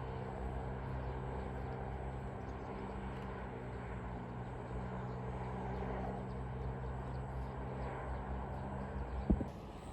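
A steady low mechanical hum from a running motor or engine, with a single sharp knock about nine seconds in.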